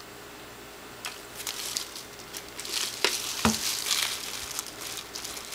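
Disposable plastic gloves and plastic wrap crinkling as a ball of yarn is handled and turned on a plastic-covered table. There is a light knock about three and a half seconds in.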